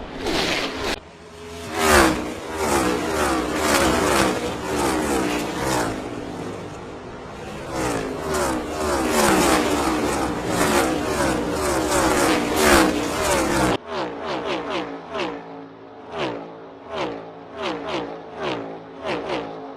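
NASCAR Next Gen Cup cars' V8 engines at full throttle, passing one after another, each pitch sliding downward as a car goes by. About 14 seconds in the sound switches abruptly to a quicker series of sharper pass-bys.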